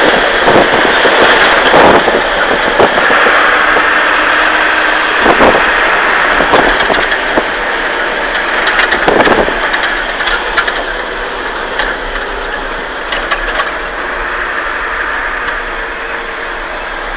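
A vehicle's engine running under a loud, steady rush of road and wind noise while driving, with a few knocks and rattles in the first half. The noise eases off somewhat in the second half.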